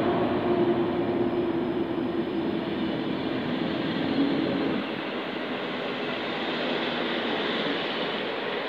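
PKP InterCity passenger coaches rolling past on the track, a steady rush and rumble of wheels on rail. A low hum fades out about halfway through.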